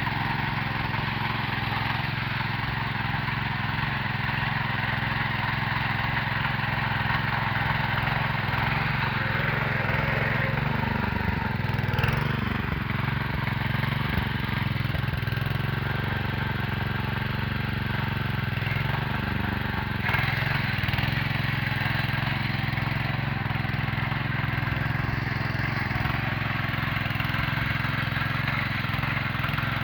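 Rotary tiller's engine running steadily under load as it churns the soil between sugarcane rows, with a brief change in its sound about twelve seconds in.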